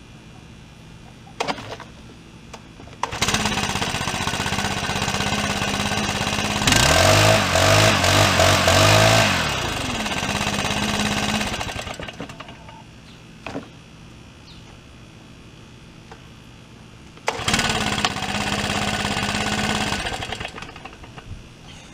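Stihl BR600 Magnum backpack blower's 4-MIX engine firing up and running for several seconds, revving up hard once, then dying; about five seconds later it catches again, runs for about three seconds and dies out. The engine won't keep running after its tune-up and valve adjustment.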